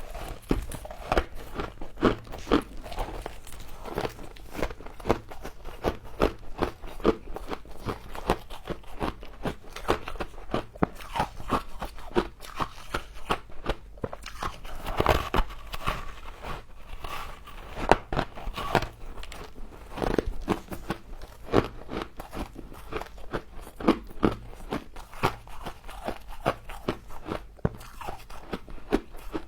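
Frost being bitten and chewed: a dense, irregular run of crisp crunches and crackles, with a few louder bites.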